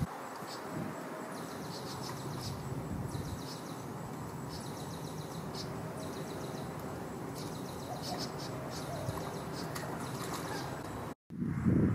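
Repeated short, rapid high-pitched chirping trills, about one every second, over a steady outdoor background hiss. The sound drops out briefly near the end.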